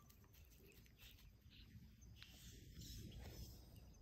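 Near silence: faint outdoor ambience with a low rumble and a few faint ticks.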